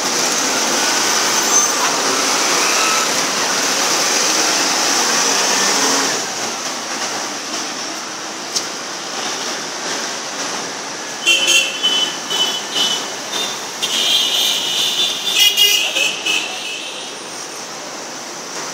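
Busy street traffic noise with vehicle horns honking several times in short bursts through the second half.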